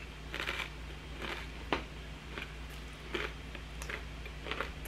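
Crunching bites on crackers and chewing, short crisp crunches coming about once a second, one of them a sharper click.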